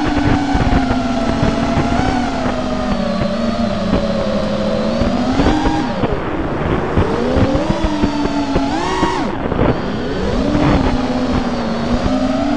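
Brushless motors and propellers of an FPV freestyle quadcopter (T-Motor 2305 2450kv motors on HQProp Ethix S3 props) buzzing as it flies, the pitch swooping up and down with the throttle, with sharp drops about six seconds in and just after nine seconds. Wind rush is mixed in, heard through the quad's onboard GoPro.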